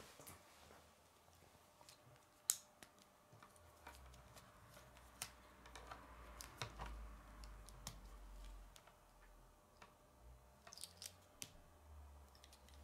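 Faint scattered clicks and light rattling of plastic K'nex pieces being handled and snapped together, with one sharper click about two and a half seconds in.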